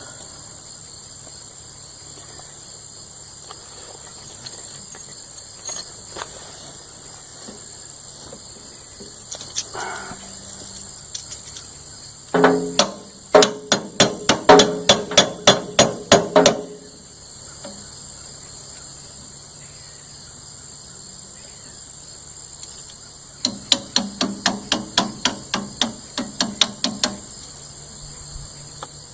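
Two runs of quick, ringing hammer blows on metal, about four or five a second: one lasting about four seconds midway through and a shorter one near the end. A steady high insect drone runs underneath.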